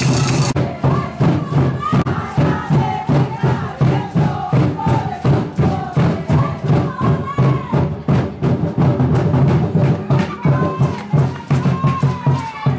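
Drums pounding a fast, steady beat while a crowd chants and shouts over it.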